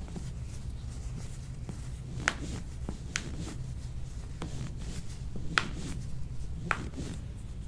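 Four sharp clicks from hands-on chiropractic work, spread a second or more apart, the loudest about two and five and a half seconds in, over a low steady hum.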